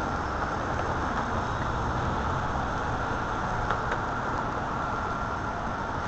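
Steady rumble of city street traffic, car engines and tyres, with two faint clicks near the middle.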